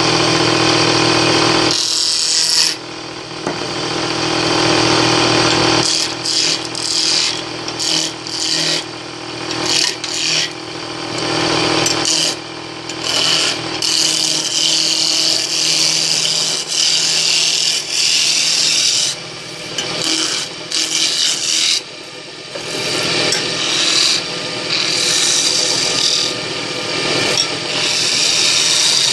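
Wood lathe spinning a long wooden spindle while a hand-held turning tool cuts into it, throwing off shavings: a rough cutting noise that swells and drops away with each pass of the tool, over a steady motor hum.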